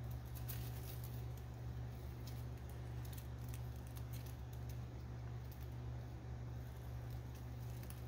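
Faint crackling and rustling of dry leaf litter as a yellow-tailed cribo snake crawls through it, the light clicks mostly in the first half. A steady low hum runs underneath.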